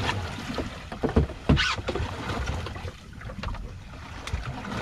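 Wind buffeting the microphone and water slapping against the hull of a small fishing boat on choppy sea, with a couple of sharp knocks about a second and a half in.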